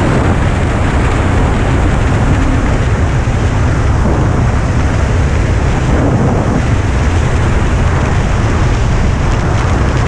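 Wind rushing over the microphone of a moving motorcycle. Under it, a Yamaha MT-03's 300 cc two-cylinder engine is running at road speed. The noise stays steady and loud.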